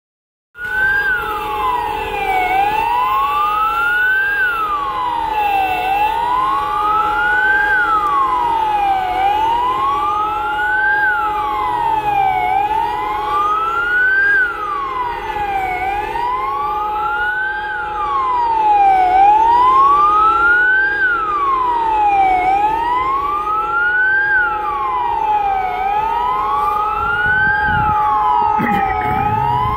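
Warning siren wailing, its pitch rising and falling about once every three seconds, with steady held tones beneath. It is the siren sounded across Warsaw at 17:00 on 1 August to mark the hour the Warsaw Uprising began.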